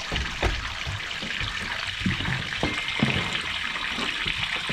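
Ice water pouring and splashing as fish and ice slurry are dumped from a fish box, with a few irregular knocks.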